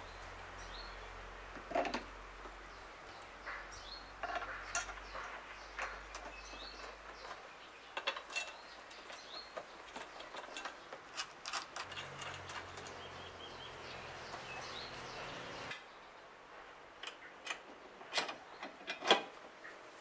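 Scattered metal clinks and knocks as steel trike-kit brackets are handled and fitted against a scooter's rear frame and mounting bolts.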